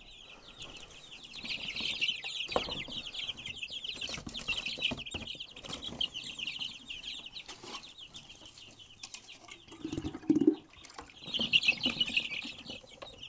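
A tote full of young chicks peeping constantly, many rapid high chirps overlapping. A short low thump about ten seconds in.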